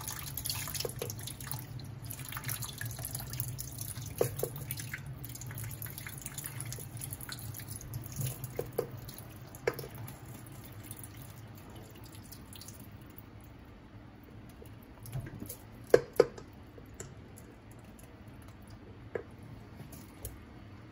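Tap water running into a stainless-steel sink while a pot is rinsed under the stream, with a few light clinks and knocks, the loudest a quick pair past halfway. The running water stops about two-thirds of the way through.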